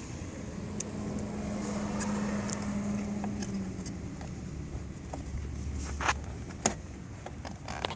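A vehicle's engine hum swells and then fades over the first few seconds. A few sharp clicks follow in the second half, from hands and tools working on the steering wheel.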